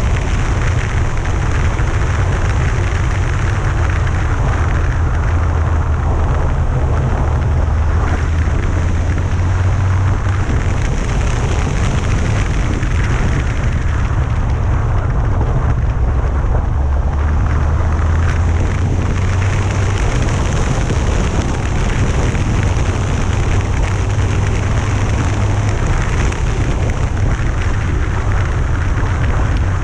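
Yamaha FJR1300A motorcycle riding at speed: a steady, heavy wind rumble on the mounted action-camera microphone, over engine and road noise.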